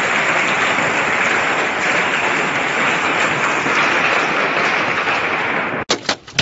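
Heavy hail pelting down: a dense, steady clatter of hailstones striking the ground and roofs. Near the end it cuts off suddenly, and separate sharp knocks follow as hailstones strike a car's windshield, heard from inside the cabin.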